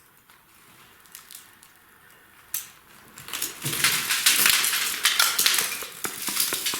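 Kitchen handling sounds: a sharp click, then from about three seconds in a busy run of clattering and rustling from dishes and utensils being handled.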